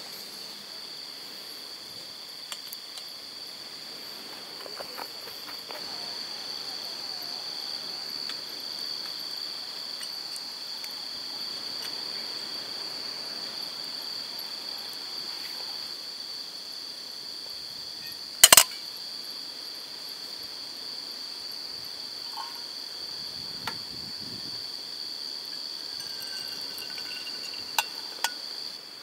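Night insects trilling in one steady, unbroken high tone. A single sharp click cuts through about two-thirds of the way in, with a couple of lighter clicks near the end.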